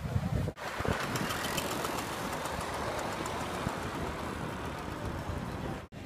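City street traffic heard from inside a car: a steady wash of engine and road noise. It starts abruptly about half a second in and cuts off just before the end.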